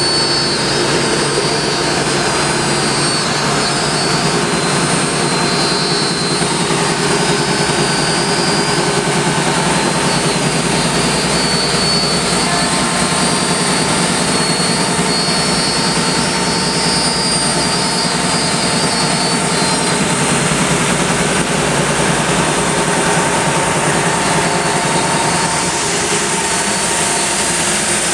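Sandingmaster SA2200 two-head widebelt sander running steadily, a loud even rush of belts and motors with several steady tones through it.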